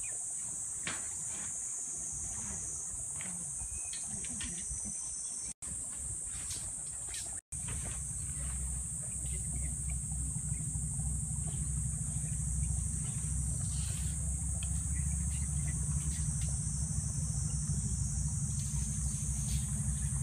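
Steady high-pitched buzz of a summer insect chorus. About eight seconds in, a low rumble comes in and grows louder.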